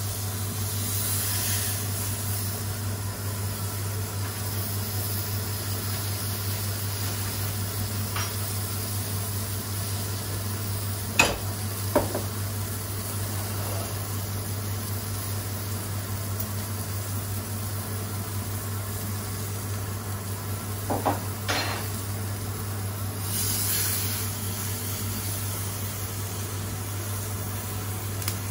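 A beef fillet sizzling as it sears in a scorching hot frying pan with a little oil, over the steady hum of a cooker-hood extractor fan. A couple of short sharp knocks come a little before halfway, and two more about three quarters through.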